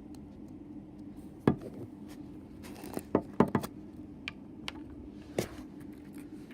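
Scattered knocks and clinks of objects being handled over a steady low hum. There is one sharp knock about a second and a half in, a quick cluster of them about three seconds in, and a few lighter clicks after that.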